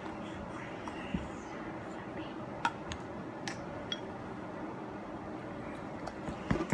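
A few light clicks and clinks as slime with plastic jewels mixed in is worked in a bowl, over a steady low hum.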